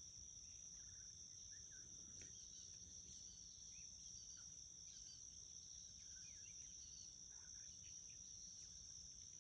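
Near silence: a faint, steady, high-pitched insect drone, with a few faint short bird chirps scattered through it.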